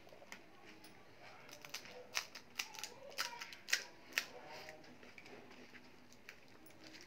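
Crisp, hollow pani puri shells crackling in a quick run of sharp cracks as fingers pick one up and break it open, the loudest cracks a little after three and a half and about four seconds in.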